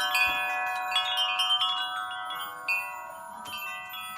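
Wind chimes ringing: several metal tones struck at irregular moments and left to ring on, the whole fading toward the end.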